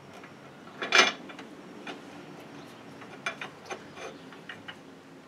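A single sharp metallic clank about a second in, then a few light scattered clicks and ticks from a bolt and a cordless driver being fitted against an aluminum A-arm guard.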